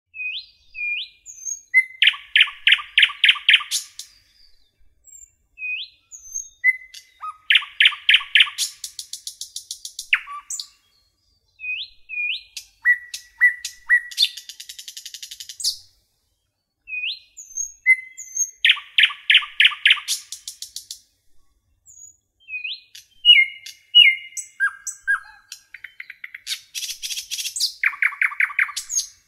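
A songbird singing: short upswept chirps and fast trilled phrases, repeated again and again with brief pauses between them.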